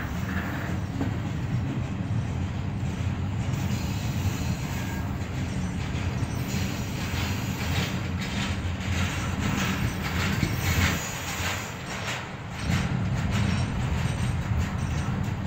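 Double-stack intermodal freight train rolling past: a steady rumble of railcar wheels on the rails with scattered clicks and knocks. The rumble eases briefly about twelve seconds in, then picks up again.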